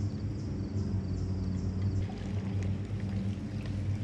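Bow-mount electric trolling motor running with a steady low hum.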